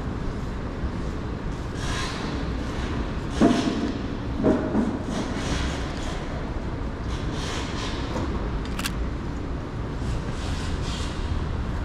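City street ambience: a steady traffic rumble with vehicles passing and hissing by, two short louder sounds about three and a half and four and a half seconds in, and a single sharp click later on.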